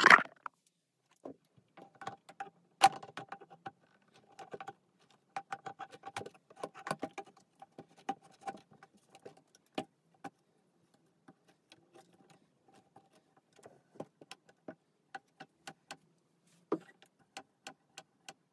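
Irregular clicks, taps and knocks of hard plastic and aluminium parts being handled and turned on a 3D-printed vehicle frame, with a faint steady tone that comes and goes through the middle.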